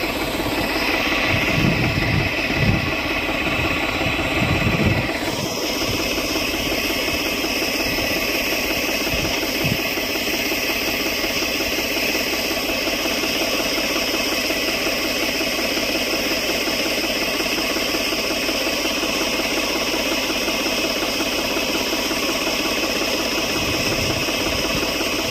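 Tractor's diesel engine running steadily at a constant speed, powering a tractor-mounted crop sprayer, with a steady hiss over it. A few low thumps come in the first five seconds.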